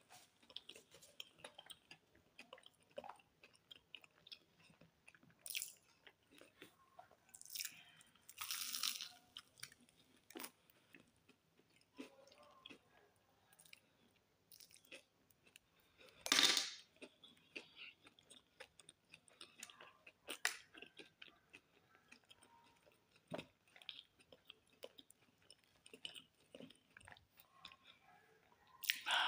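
A person chewing and biting into a pastry close to the microphone: soft crunches and mouth noises come in scattered short bursts, with one louder burst a little past halfway.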